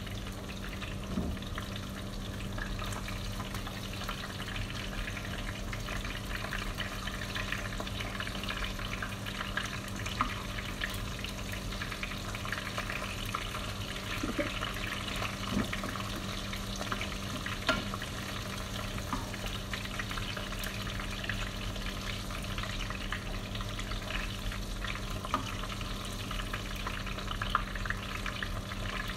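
Marinated goat meat pieces frying in hot oil in a frying pan: a steady sizzle and crackle with scattered sharp ticks as pieces are laid in and turned with metal tongs, over a steady low hum.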